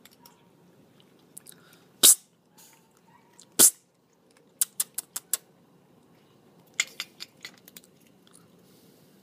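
Kitten crunching dry kibble: sharp separate crunches, two loud ones in the first half, then quick runs of several crunches.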